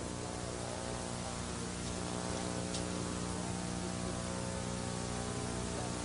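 Steady electrical mains hum with hiss: a low buzz with many evenly spaced overtones.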